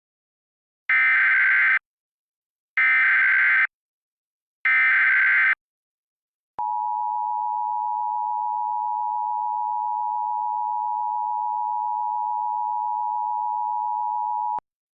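Emergency Alert System opening sequence. Three short bursts of buzzy digital data tones (the SAME header), each about a second long, are followed by the two-tone attention signal, held steady for about eight seconds and then cut off sharply. Together they mark the start of a new emergency alert.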